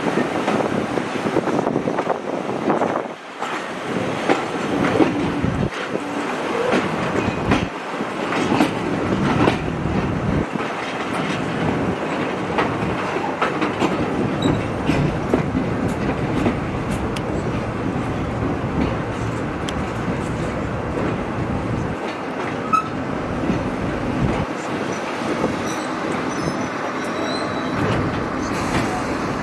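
Passenger carriage running on the rails, a steady rumble with the irregular clickety-clack of its wheels over rail joints, heard from an open carriage window.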